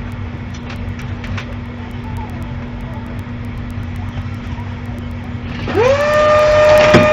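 A steady low hum with faint scattered clicks. Near the end an electric motor starts: its whine rises quickly in pitch and settles into a steady tone over a rushing noise.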